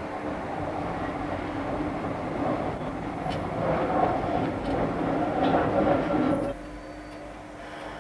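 Tram running along the rails, heard from the front of the car: a steady rolling rumble and motor hum with a few clicks and rattles, growing louder towards the middle. About six and a half seconds in it cuts off suddenly to a quieter steady hum.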